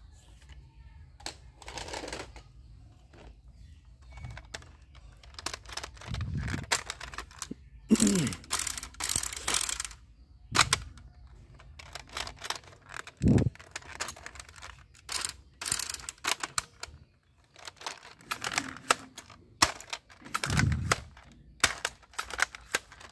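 Plastic toy guns being handled: clusters of rapid sharp clicks and clatter, with a few low thuds.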